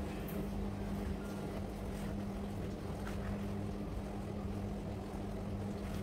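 Whirlpool dishwasher running a cleaning cycle: a steady motor hum with a low rumble, with a few faint light scrapes as a cloth wipes the rubber door gasket of a front-loading washing machine.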